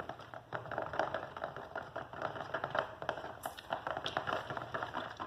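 Sticky white-glue slime mixture with cream and talc being stirred and worked, making a rapid, irregular run of small wet clicks and squelches.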